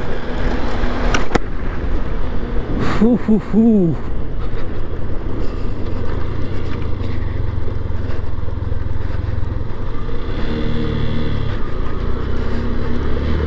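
Motorcycle running along the road, its engine a steady low drone under rushing wind noise on the rider's microphone.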